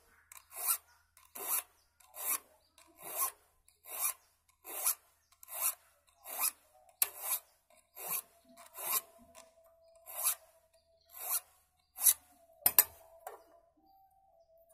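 A file rasping across the teeth of a hand saw, sharpening the blade in steady strokes a little more than one a second. The strokes stop about two seconds before the end, with a sharp click among the last ones.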